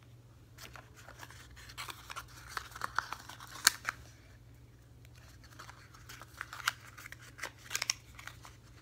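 Cosmetic packaging being handled: crinkling and rustling with sharp clicks in two spells, the loudest click a little under four seconds in.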